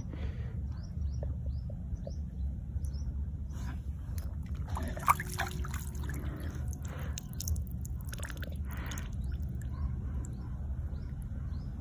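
Outdoor background at a pond's edge: a steady low rumble with faint, scattered short bird chirps and a few brief rustles of handling.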